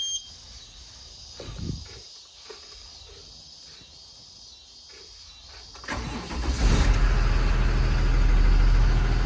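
A few faint clicks, then, about six seconds in, the diesel engine of a 2022 Blue Bird Vision school bus is started and settles into a steady idle.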